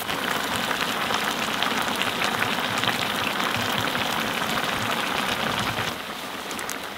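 Iguana stew of meat and vegetables sizzling in a disco (plough-disc pan) over a charcoal fire: a dense, steady crackle of many small pops. It quietens about six seconds in as the pan is taken off the fire.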